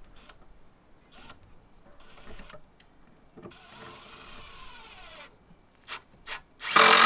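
Timber boards handled and knocked against each other, with a longer scraping rub of wood on wood in the middle. Near the end a cordless drill-driver runs loudly for about a second.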